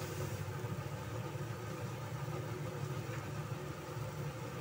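Steady low hum with a faint, even sizzle of opo squash slices frying in oil in a wok.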